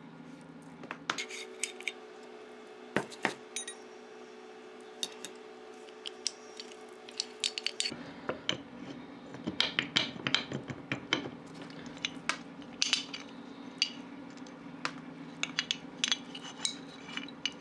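Small steel lathe parts, a tool bit and a tool-holder block, being handled: irregular sharp metal clinks, taps and light scrapes, over a steady low hum.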